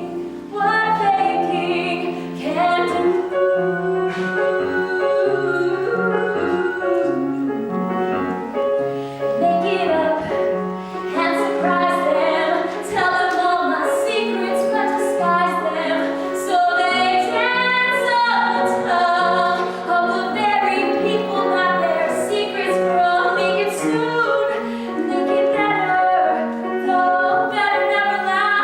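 A woman singing a musical-theatre ballad solo, with piano accompaniment.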